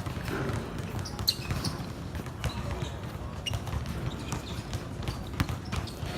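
Basketball bouncing on a court during a game, heard as repeated sharp knocks, with a few short high chirps and faint background voices.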